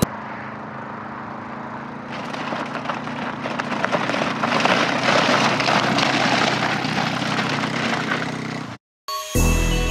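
Small 125 cc ATV engine running, with a rough, crackly noise that grows louder about two seconds in and cuts off abruptly near the end.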